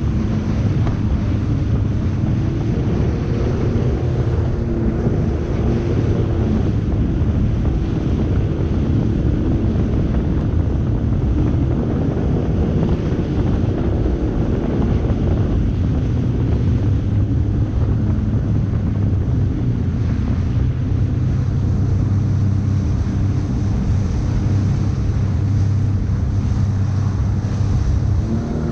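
Sea-Doo personal watercraft engine running steadily at cruising speed, with wind buffeting the microphone and the rush of water under the hull.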